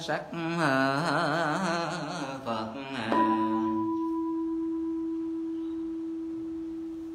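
A voice chants a Buddhist invocation with a wavering, drawn-out melody. About three seconds in, a bowl bell is struck once and rings on with a pure steady tone that slowly fades: the bell that marks a bow after each Buddha's name in the recitation.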